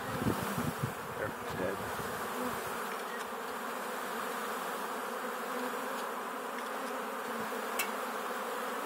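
A mass of honeybees from a shipping package buzzing in a steady drone as they are shaken out of their wooden package into a new hive. A few thumps sound in the first two seconds as the package is jolted.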